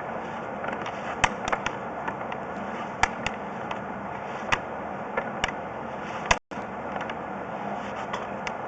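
Pipe inspection camera and its push cable being fed down a 3-inch plumbing vent pipe, giving scattered irregular clicks and taps over steady background noise with a faint hum.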